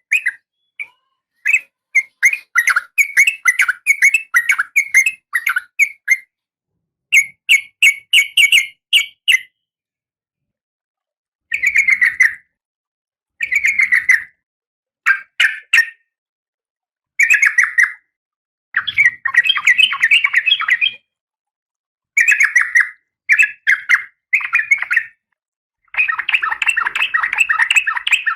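Female Oriental magpie-robin calling in short bursts of rapid chattering notes, separated by pauses of about a second, with a longer burst near the end. It is the call of a female in breeding condition calling to a male.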